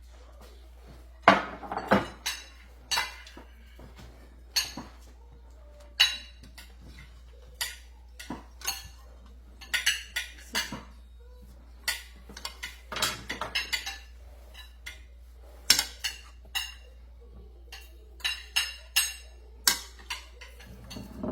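Spoons and cutlery clinking and scraping against plates and serving dishes as food is dished up: many separate sharp clinks at irregular intervals, the loudest a cluster a second or two in.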